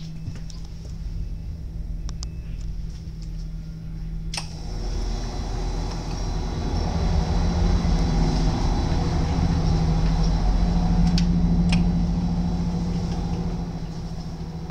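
Diesel engine of a Stadler GTW railcar running steadily, a constant low hum that swells as the central power module is passed through and eases off near the end. A sharp click about four seconds in and two more near the twelve-second mark.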